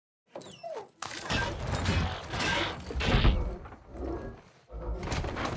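Film sound effects of a giant robot moving: heavy metallic clanks and deep thuds, with music, after a short sliding whine near the start.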